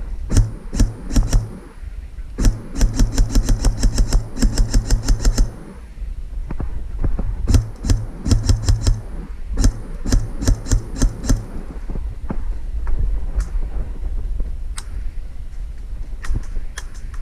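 Airsoft rifle shots fired close by in rapid strings of many quick cracks, a long fast run in the first half, then shorter runs and scattered single shots.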